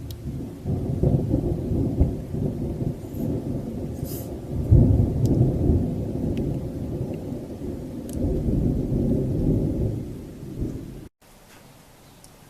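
Long rolling thunder rumble, loudest about five seconds in. It cuts off suddenly near the end, leaving a faint hiss of rain.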